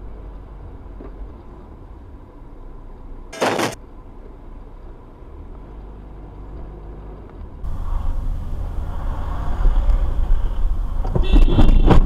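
Car engine and road noise heard from inside the cabin, with a brief sharp bang about three and a half seconds in. After a cut the road noise is louder, and near the end there is a loud burst of knocks with a shrill high note.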